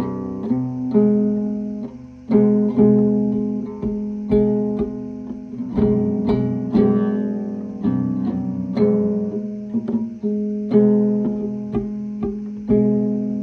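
Background music: plucked acoustic guitar, a new note or chord about once a second.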